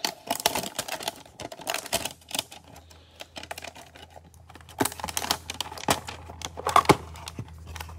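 Gloved hands handling a cardboard trading-card hanger box and its plastic-wrapped packs: quick, irregular clicks, taps and crinkles of cardboard and cellophane as the packs are pulled out.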